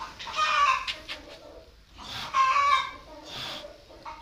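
Chickens calling: repeated loud squawking calls about half a second long, one near the start and one about two seconds in, with softer clucking between.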